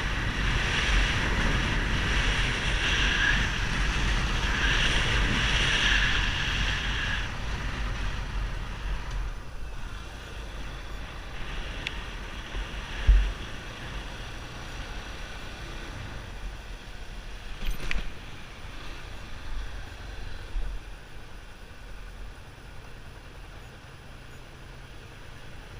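Yamaha XTZ 250 Ténéré's single-cylinder engine running through a Roncar 2Way exhaust, with wind on the microphone. It is louder for the first seven seconds or so, then quieter. A sharp thump comes about thirteen seconds in.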